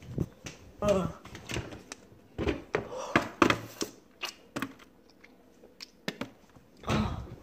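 Phone being handled close to its microphone: scattered knocks, thuds and clicks with a few short bits of voice.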